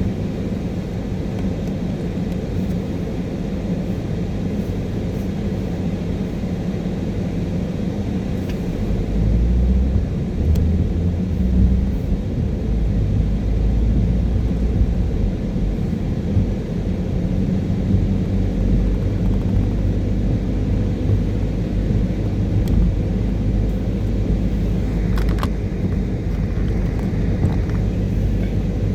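Steady low rumble of a car driving on a wet road, tyre and engine noise heard from inside the car, growing heavier about nine seconds in.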